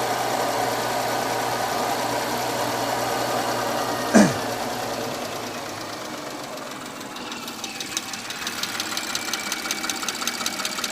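Porsche Cayenne EA839 V6 engine running, with a brief falling whoosh about four seconds in; from about seven seconds a fast, even ticking comes through. This is the abnormal engine noise that the mechanic says is typically caused by failed rocker arms with worn needle bearings.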